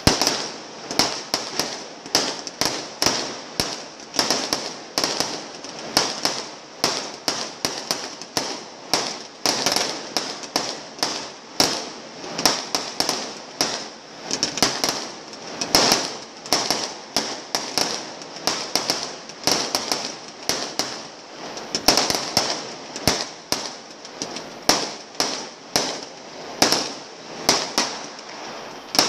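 Aerial fireworks bursting in quick succession. Sharp bangs come about two a second, each with a short decay, and they keep going without a break.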